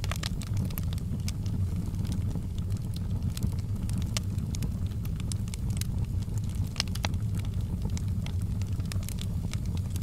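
Wood log fire burning in a fireplace: a steady low rumble of the flames under irregular sharp crackles and pops from the burning logs.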